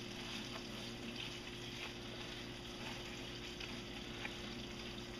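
Hot oil in a deep fryer bubbling and sizzling steadily around pieces of breaded buffalo fish, faint, over a low steady hum.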